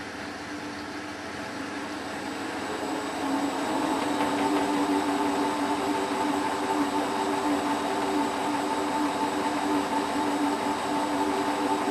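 Hotpoint WT960 washing machine in its final fast spin: the drum and motor speed up over the first few seconds, getting louder, then hold a steady high-speed spin with a steady motor whine.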